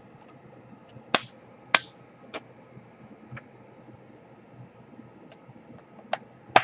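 Sharp plastic clicks and snaps as a laptop keyboard is connected and pressed into its clips, with the two loudest close together a little over a second in and a few lighter ones after.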